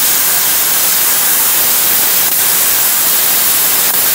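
Tenya Cut 80 plasma cutter cutting metal: a loud, steady hiss from the arc and air jet, with a couple of faint crackles.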